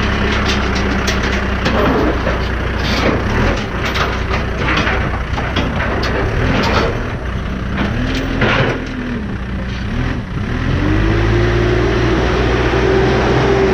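Backhoe's diesel engine running, with a series of short bursts of noise over it; a little over ten seconds in the engine note rises and holds higher as the revs go up.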